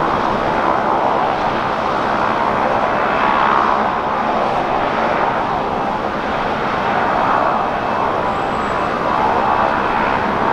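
Airliner jet engines running, a loud, steady rush that swells and eases slightly a few times.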